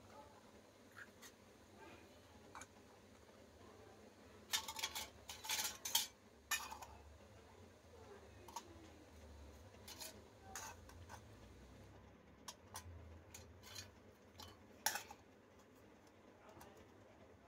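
Small metal toy pots and plates clinking and tapping as they are handled and stacked, with a quick cluster of clinks about five seconds in and scattered taps after.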